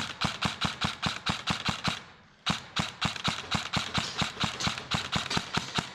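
Airsoft rifle firing a rapid string of shots, about seven a second, in a two-second burst, a short pause, then a longer burst of about three and a half seconds.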